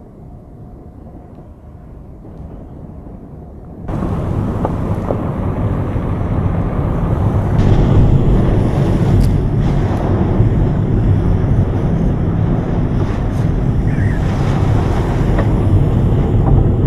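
Strong storm wind near a tornado: a low wind rumble, then about four seconds in a sudden jump to loud, steady wind buffeting and rumble heard from inside a vehicle, with a few sharp ticks against the glass.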